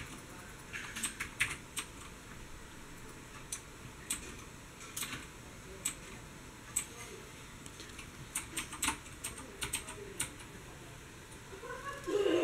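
Computer keyboard clicking, keys struck a few at a time in irregular clusters with short pauses between them, over a faint steady room hum.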